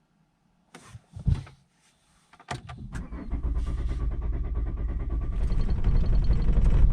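A short knock and thump, then the starter cranking the Volvo V60 D5's five-cylinder diesel with a steady rhythmic churn that grows louder. The engine is struggling to fire because air is left in the fuel system after the fuel filter change.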